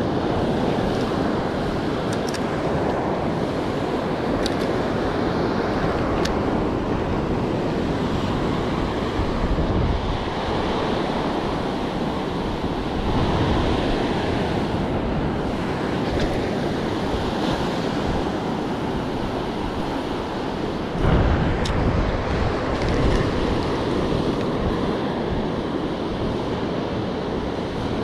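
Gulf surf breaking and washing up a sandy beach, with wind buffeting the microphone. The noise is steady and swells briefly about three quarters of the way through.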